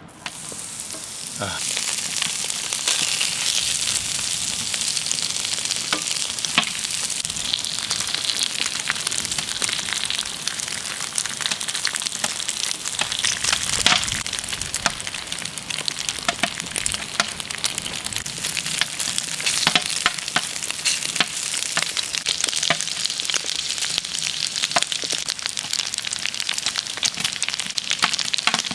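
Cubes of lamb fat-tail sizzling on a red-hot saj griddle as the fat renders into cracklings. The sizzle starts about a second in and then runs steadily with scattered crackling pops.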